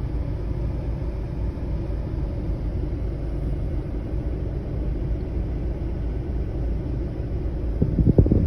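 Steady low rumble of air-conditioner airflow blowing across the microphone, with a few brief knocks near the end.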